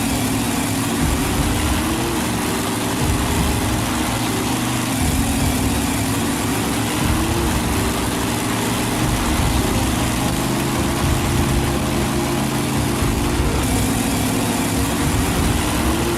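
A heavy vehicle engine running steadily, a dubbed-in sound effect with a continuous low hum.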